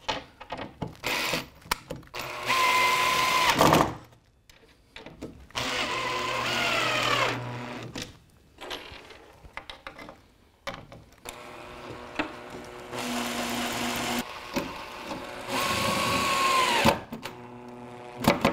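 Cordless drill-driver driving screws into a 9mm plywood track bed: about four runs of a second or two each, the motor whine sagging in pitch as each run stops. Clicks and handling knocks come between the runs.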